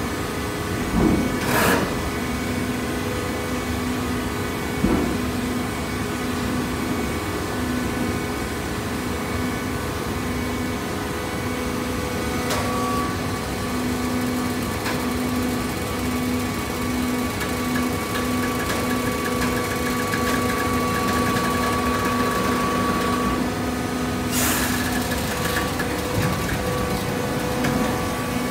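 A hydraulic cardboard baler running: a steady electric motor and pump hum, with a few sharp clunks about two and five seconds in and a louder one near the end.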